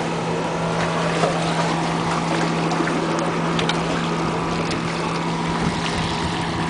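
Sea water washing against shore rocks with wind noise, over a steady low hum.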